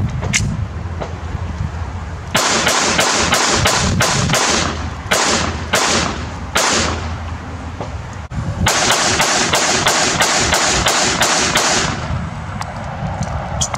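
Glock 44 .22 LR pistol fired in two quick strings of many shots each, about three to four shots a second. The first string starts about two seconds in and the second about eight and a half seconds in, with a short pause between them.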